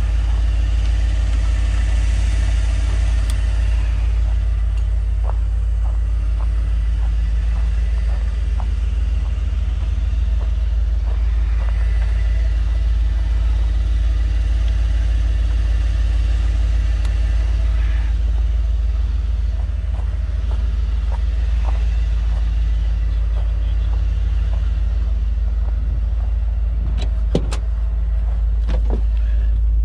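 Vehicle engine running steadily with a deep, even rumble. A few sharp clicks or knocks come near the end.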